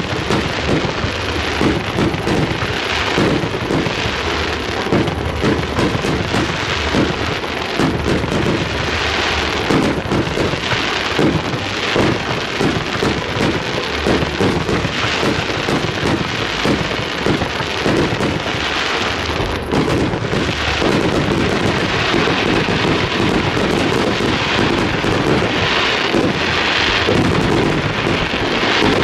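Fireworks display: aerial shells bursting in a rapid, near-unbroken string of bangs that overlap one another.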